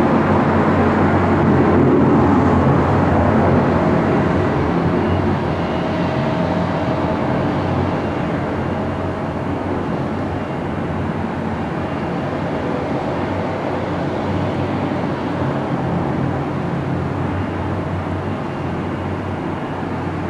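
Jet airliner engine noise: a steady rumble that slowly fades.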